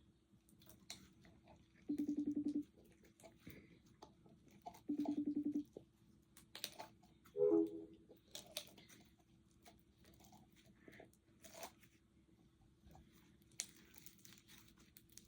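Slime being squeezed and worked by hand, giving scattered crackling and popping clicks. A short pulsing buzz-tone sounds twice, about three seconds apart, and is the loudest thing heard. Midway there is a brief tone that falls in pitch.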